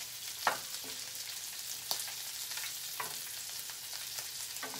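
Shell-on shrimp frying in butter in a stainless steel skillet, a steady sizzle, with a few short knocks and scrapes of a wooden spoon against the pan as the shrimp are turned, about four in all.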